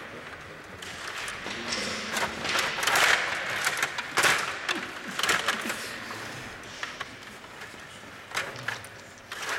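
Stiga table hockey game in play: the metal control rods rattle, and the plastic players and puck click and knock against each other and the boards in irregular bursts.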